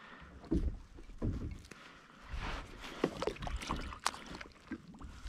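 Water splashing and scattered knocks and clicks against a plastic kayak hull and gear as a small snapper is lifted out of the water beside the kayak.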